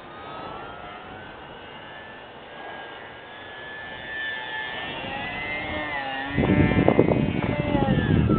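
Hacker A20-26M brushless outrunner motor and propeller of an RC aerobatic airplane whining in flight, its pitch gliding down and back up. About six seconds in, a louder rushing noise covers it for a couple of seconds.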